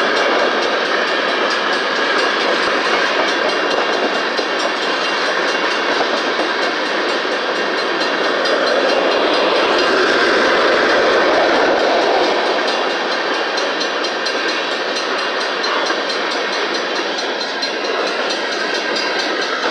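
Empty covered hopper cars of a freight train rolling past: a steady rumble and clatter of steel wheels on rail, louder for a few seconds midway.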